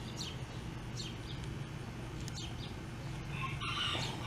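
Small birds chirping, short high chirps repeating about once a second, over a low steady hum. Near the end a louder call begins, a rooster starting to crow.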